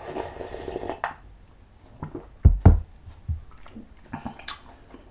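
A person eating bulalo close to the microphone: a slurp in the first second, then scattered wet chewing clicks and two heavy knocks about halfway through.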